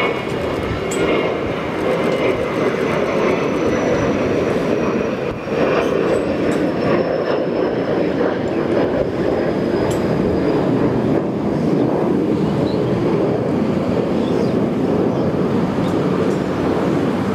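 Cessna Citation 650 business jet's twin TFE731 turbofans at takeoff power as it climbs away: a loud, steady roar with a thin high whine that slowly falls in pitch.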